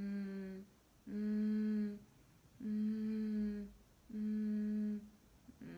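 A woman humming with closed lips: a string of held notes about a second long each, all on one steady low pitch, with short breaks between them.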